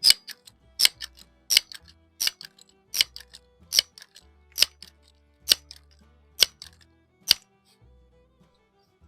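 Crosman 1322 multi-pump air gun being pumped up: about ten sharp clacks of the pump arm, a little under a second apart and slowing slightly as the strokes get harder, over quiet background music.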